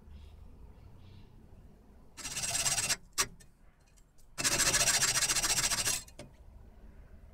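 Hacksaw blade cutting through a thin metal rod clamped in a bench vise: two spells of rasping sawing, a short one about two seconds in and a longer one of about a second and a half, with a brief click between them.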